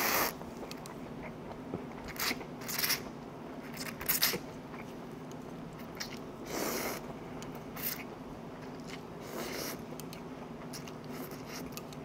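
Person eating stir-fried instant ramen noodles: irregular slurps and chewing, with short noisy bursts every second or two.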